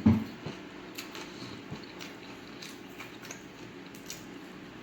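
Chewing fried chicken close to the microphone: wet mouth clicks and smacks, with one louder thump right at the start.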